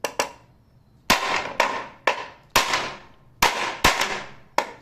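Hammer blows knocking an aluminium door threshold into place to close a gap. About nine sharp strikes come at roughly two a second, irregularly spaced, each with a short metallic ring.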